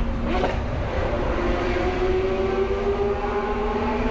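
Lamborghini Aventador V12 running through a Brilliant aftermarket Inconel exhaust, pulling under load in a road tunnel, its pitch climbing slowly. There is a short upward blip just after the start.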